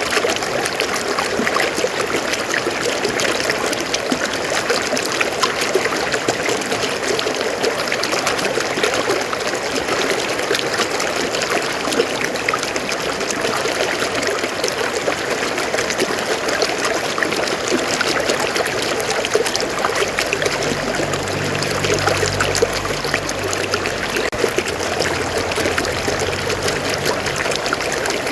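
River water flowing steadily over rocks, a continuous babbling rush. A low hum joins underneath for several seconds near the end.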